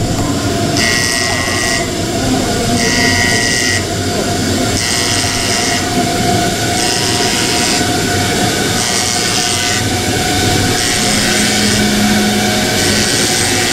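A repeating electronic warning tone, high-pitched, sounding for about a second every two seconds, over steady loud background noise. A short low hum joins near the end.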